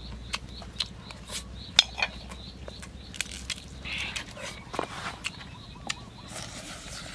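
Close-up eating sounds: a person chewing cooked duck meat and pulling it off the bone with the fingers, with many short wet mouth clicks and smacks, the sharpest about two seconds in.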